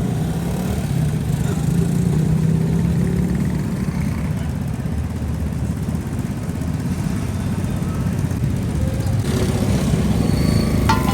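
Steady low rumble of street traffic with engines running, and voices underneath. A short sharp click near the end.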